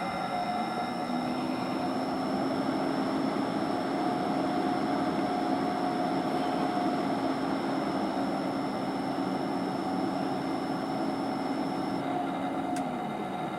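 A VP-1000 unit's fan running with a steady whirring noise and a low hum that comes in about a second in and cuts off near the end, followed by a click. This is the abnormal noise the owner reports before the fan turns, most noticeable around this point.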